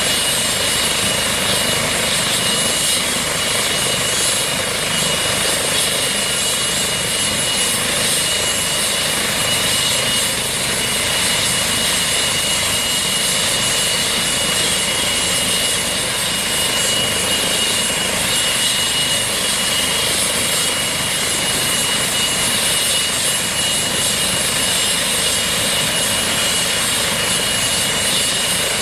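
Eurocopter EC135 air-ambulance helicopter running on the ground with its rotor turning, before lift-off. It is a steady, even rotor and engine noise with a constant high whine over it.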